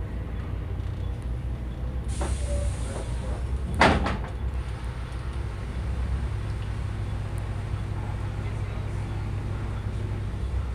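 Double-decker bus engine idling at a stop, heard from on board as a steady low rumble. About two seconds in comes a hiss of air, then a loud sharp clack near four seconds, typical of the bus's pneumatic doors working.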